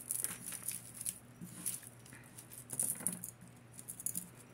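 Beads of a necklace and loose costume jewelry clicking and jangling as they are handled, in irregular clusters of small clicks that thin out near the end.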